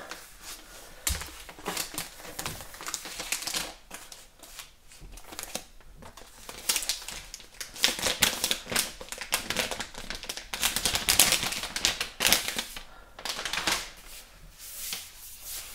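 Clear plastic wrapping crinkling and crackling in irregular spurts as it is slid off and pulled away from a laptop by hand, with a light knock about a second in.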